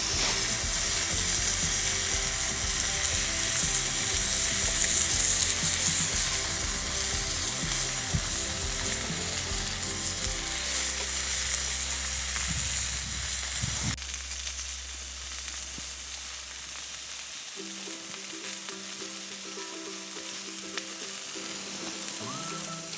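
A steady hissing noise under soft background music with held notes. The hiss drops abruptly about two-thirds of the way through, as at an edit.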